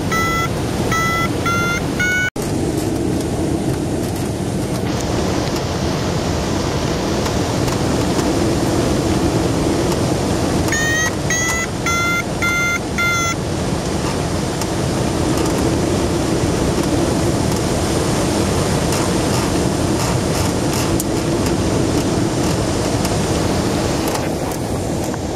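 Steady rush of airflow over the open cockpit of a Swift rigid-wing glider in flight. Twice a variometer beeps in a quick run of short, slightly rising tones: for about two seconds at the start and again about eleven seconds in, signalling that the glider is climbing in lift.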